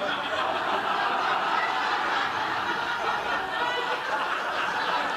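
Studio audience laughing, a long steady wave of laughter that follows a punchline.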